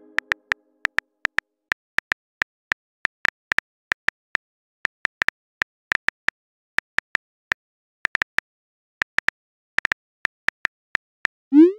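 Phone on-screen keyboard key clicks at an irregular typing pace, a few per second with short pauses. Near the end comes a short rising swoosh as the message is sent.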